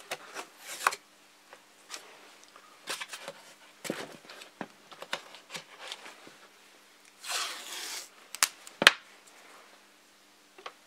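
Masking tape being handled and pressed down over a clear plastic canopy on a model plane's fuselage: scattered light clicks and rubbing, a short rasping rip about seven seconds in as tape comes off the roll, and one sharp click near nine seconds, the loudest sound.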